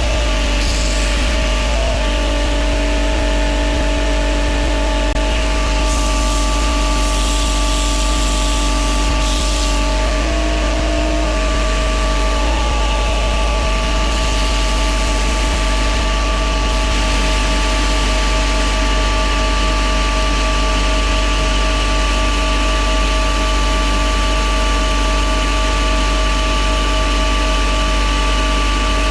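Belt grinder running steadily with a coarse 40-grit belt, grinding a wooden knife handle, with a steady low motor hum under the hiss of the belt.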